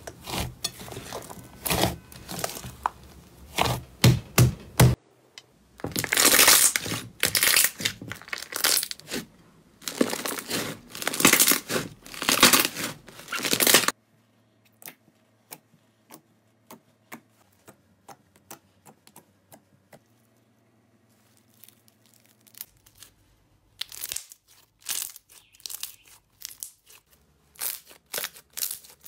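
Hands kneading and squeezing slime, making sticky clicks and pops in rapid bursts. For a stretch in the middle there are only faint scattered clicks, then the squishing picks up again near the end.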